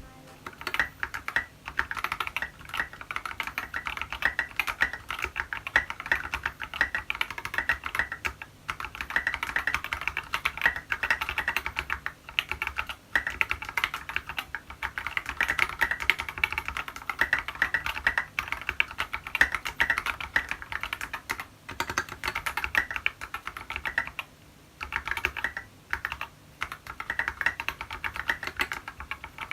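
Steady, fast typing on a TX65 mechanical keyboard with lubed Tealios linear switches and tall SA-profile keycaps, a dense run of keystroke clacks broken by a few brief pauses.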